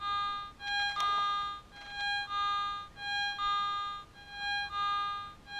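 Garrett ATX pulse-induction metal detector giving its target signal as the coil is swept back and forth over a buried target: a lower beep followed by a higher one, repeating about once a second. The operator hears a little bounce in it that could mean iron.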